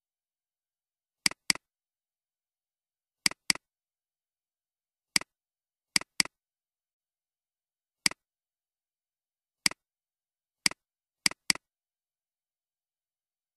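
Computer mouse clicking: a dozen sharp clicks with silence between, most of them quick double-clicks a quarter second apart, the rest single clicks.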